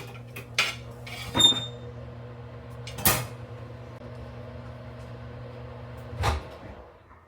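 Microwave oven running with a steady low hum while dishes and a cupboard are handled, with several sharp knocks and clicks. The hum cuts off about six seconds in with a thump as the heating ends.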